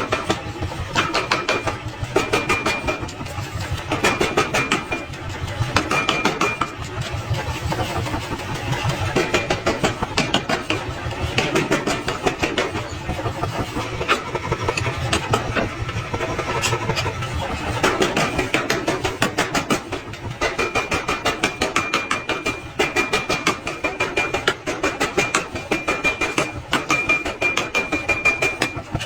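Iron being forged: a long run of fast, evenly spaced hammer blows over a steady machine running underneath, with a high ringing tone coming in for stretches near the start and through the last third.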